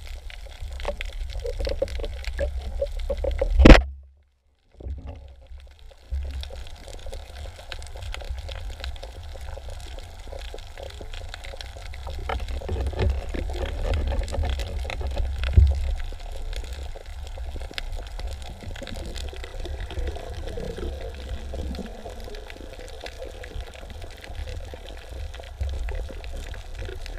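Muffled underwater noise heard through a camera housing: a steady low rumble and watery hiss, with one sharp, loud knock a few seconds in, after which the sound briefly drops out.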